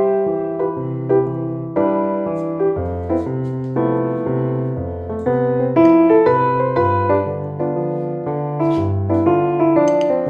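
Background music: a gentle piano piece with a steady bass line.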